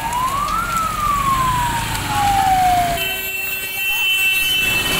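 Emergency vehicle siren wailing: one rise, then a long slow fall in pitch. About three seconds in, a steady high tone takes over, with a low rumble underneath throughout.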